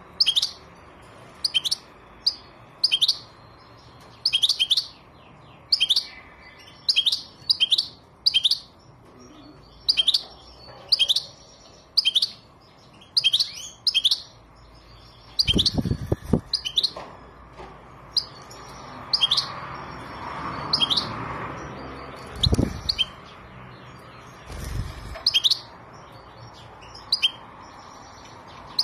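European goldfinch giving short, sharp chirping calls, singly or in pairs, about one a second. A few dull low thumps come in the middle.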